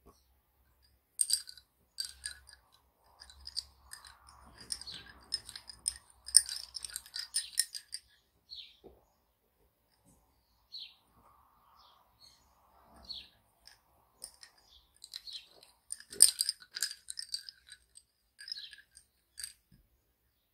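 Lace bobbins clicking and knocking against one another in quick clusters as pairs of threads are crossed and twisted in bobbin lace. The clicks come in two spells of several seconds, with a few scattered taps between.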